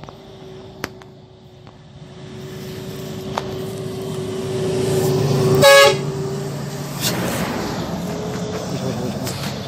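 Intercity coach bus approaching and passing close by, its engine growing steadily louder; a little over halfway through it gives one short horn blast, and its engine runs on as it goes past.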